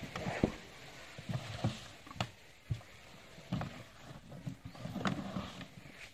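An elephant pushing and butting a large rubber tractor tyre hung against a tree trunk: irregular dull thumps and scuffs, with a few sharper knocks near the start and about two seconds in.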